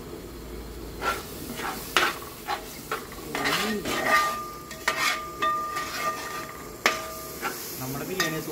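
A spoon stirring and scraping tomato-and-spice gravy in a pan over a low sizzle, with repeated clinks and scrapes against the pan from about a second in and a metallic ringing in the middle. The gravy is being cooked down until the oil separates.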